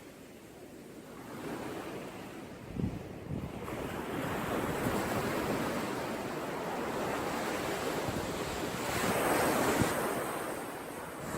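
Sea surf: waves washing in and ebbing. It is quiet at first, builds over the first few seconds, and a wave surges loudest near the end.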